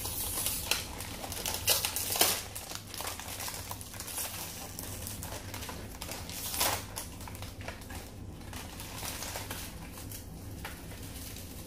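Crispy roasted seasoned seaweed (Bibigo laver) crackling as it is bitten and chewed: a run of irregular crunchy clicks, loudest in the first few seconds and again briefly a little past the middle.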